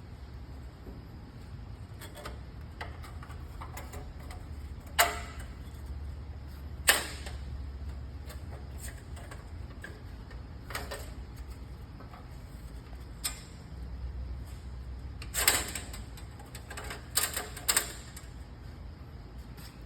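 Scattered clicks and metallic knocks of a band saw blade and the saw's parts being handled while a new blade is fitted. The loudest knocks come about five and seven seconds in, then a cluster near the end, over a steady low hum.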